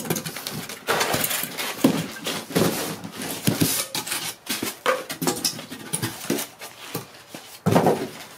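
Cardboard rustling and scraping in irregular bursts as the log splitter's empty shipping box is searched and shifted on a concrete floor.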